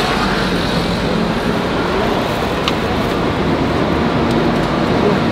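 Steady hum of street traffic, with one faint click partway through.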